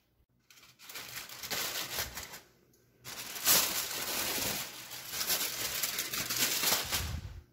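Aluminium foil crinkling and rustling as it is pulled off a baking pan, in two stretches with a short break about two and a half seconds in.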